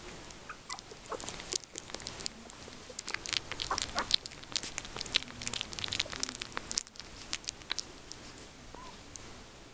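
Three-week-old Yorkshire terrier puppy mouthing and licking a finger: a run of quick wet clicks and smacks, thickest in the middle, with a few tiny squeaks.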